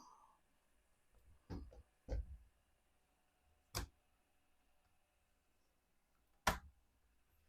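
Plastic bottom panel of a Dell Inspiron 5570 laptop being pried off with a pry tool, its clips letting go. Two soft knocks, then two sharp clicks about three seconds apart, the second the loudest.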